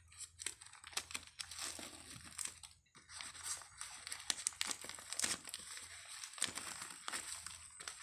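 Newspaper wrapping crinkling and rustling as it is unwrapped by hand, with a bit of tearing: irregular crackles that pause briefly about three seconds in.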